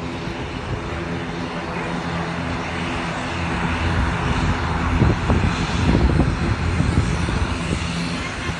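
Twin-turboprop airliner (an ATR) running on the runway, a steady propeller drone with a low hum of several even tones. It gets louder about halfway through as the aircraft turns and moves along the runway.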